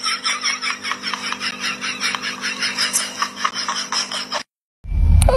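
A person laughing in a quick, continuing run of pulses that slowly fades, over a steady low hum; it cuts off about four and a half seconds in.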